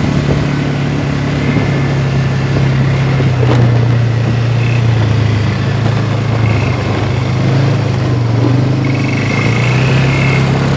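Quad bike engine running at a steady, even pitch, with the note swelling and easing slightly as the throttle changes.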